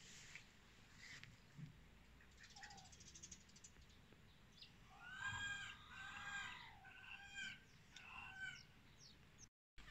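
A run of short, pitched animal calls about halfway through, several in quick succession, with small birds chirping around them.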